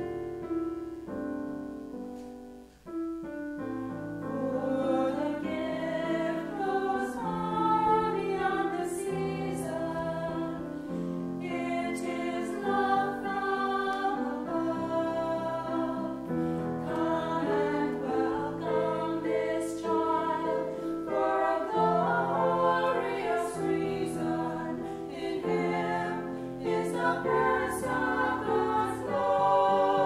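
Piano playing held chords, then about three seconds in a trio of women's voices begins singing a song in parts, with the piano accompanying them.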